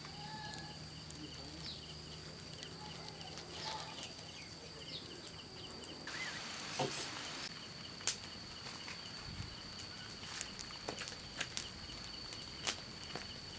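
Insects trilling steadily in a thin high tone, with a faster pulsing chirr beneath it. There are a few short bird chirps in the first half and scattered sharp clicks in the second half.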